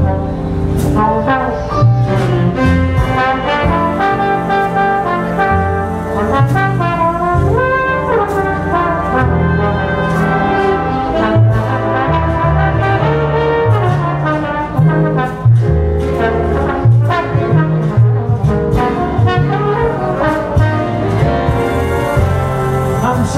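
Jazz trombone solo played over a big band's accompaniment, moving phrases of held and sliding notes above a bass line that changes note by note, with sharp drum or cymbal strokes throughout. The trombone stops near the end.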